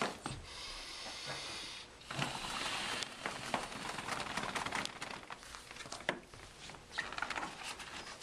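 A short hiss of air about two seconds in as the kayak's inflatable sponsons are finished off, then scattered clicks and rustles of the kayak parts being handled.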